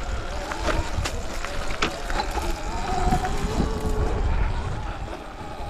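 Sur Ron electric dirt bike riding a rough dirt trail: the electric motor's whine wavers up and down with the throttle. Wind buffets the microphone, and there are scattered sharp knocks and rattles as the bike goes over bumps.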